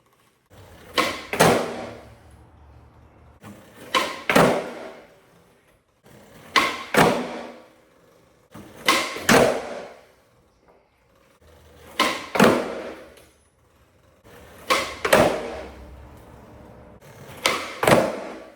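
Skateboard flip tricks on flat ground, about seven in a row: each a sharp pop of the board's tail or nose, followed a fraction of a second later by the crack of the board landing, with the wheels rolling between tricks.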